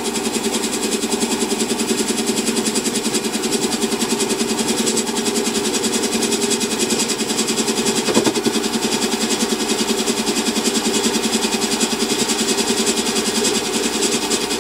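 Metal lathe running under power, its turning tool taking a cleanup cut along the outside diameter of a bar blank. A steady machine drone with a fast, even pulse.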